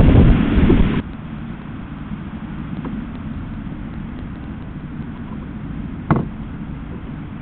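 Strong wind buffeting the outdoor camera's microphone: heavy gusting for about the first second, then, after an abrupt cut, a steadier and lower wind noise. A single sharp knock sounds about six seconds in, as a red squirrel clambers on the wooden nut feeder box.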